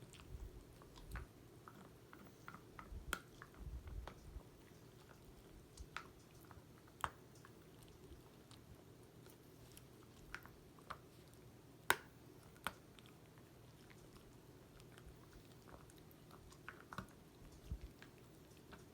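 Dog chewing a treat: faint, irregular crunches and clicks with pauses between them, the sharpest about twelve seconds in.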